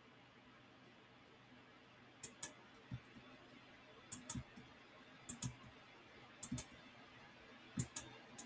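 Computer mouse button clicking, starting about two seconds in. There are about five clicks, each heard as a quick double tick of press and release, spaced a second or so apart.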